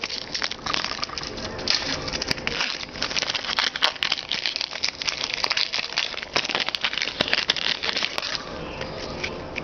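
Foil wrapper of a 2010 Topps football card pack being torn open and crinkled by hand: a dense run of crackles that eases off near the end.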